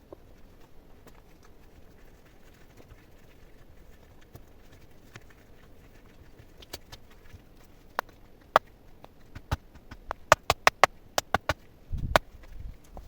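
Sharp knocks and clicks of hard material being handled: a few single strikes, then a quick run of about half a dozen, followed by a couple of low thumps near the end.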